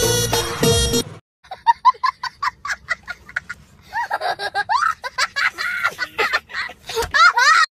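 A young boy laughing hard in quick, high-pitched fits that grow louder and higher toward the end. Dance music cuts off about a second in, just before the laughter starts.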